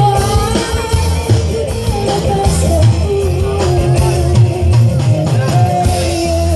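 Live jaranan campursari music, the Javanese hobby-horse dance ensemble, playing steadily: drums and a deep bass under a held melody line, with singing.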